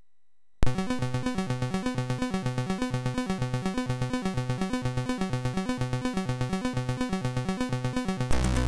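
Commodore 64 SID chip music starting suddenly about half a second in: a fast, evenly pulsing synthesizer pattern of repeating bass and melody notes, switching to a fuller section with a deeper bass near the end.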